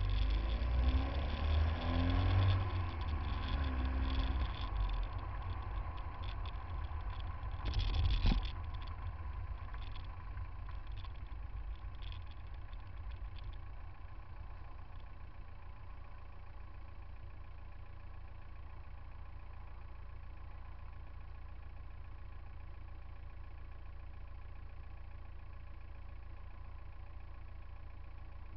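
Car engines in slow stop-and-go traffic, picked up by a camera low on a front bumper: a low rumble with shifting engine pitch while rolling for the first several seconds, a brief loud burst about eight seconds in, then a steady low idle hum.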